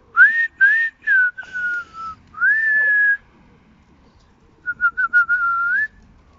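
A person whistling with the mouth. It starts with a few short whistled notes, some rising and some falling, then one longer note that rises and holds. Near the end comes a quick run of short chirping notes that finishes on a rising note.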